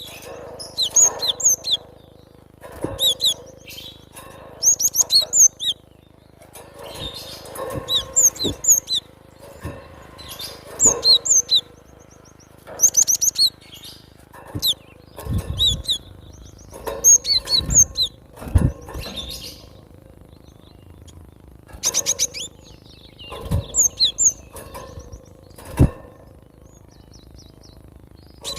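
Cinereous tit (gelatik batu) singing: short phrases of sharp, high repeated notes, one burst every second or two. A few low thumps come in the second half.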